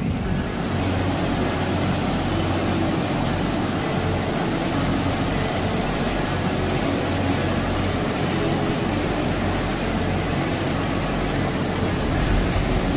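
Steady rushing roar of a waterfall's falling water, an even noise without a beat.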